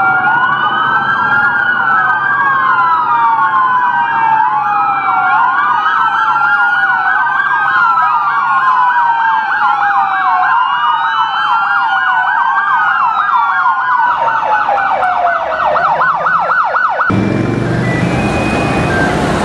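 Several police car sirens wailing at once, their slow rising and falling sweeps overlapping. About fourteen seconds in they switch to a faster yelp. A few seconds later the sound cuts to steady street traffic noise.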